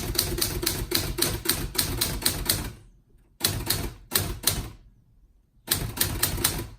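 Olympia SG-1 manual desktop typewriter being typed on: three runs of rapid keystrokes, about five strikes a second, with short pauses between them.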